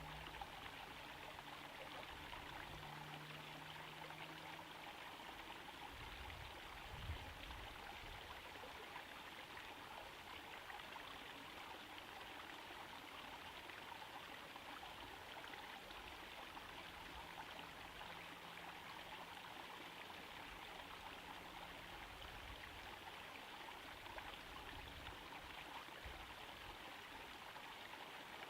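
Small garden-pond waterfall trickling and splashing steadily into the pond. There is a brief low thump about seven seconds in.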